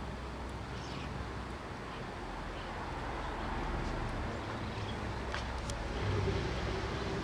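Outdoor background of a steady low rumble like passing road traffic, growing a little louder in the second half, with a few faint clicks.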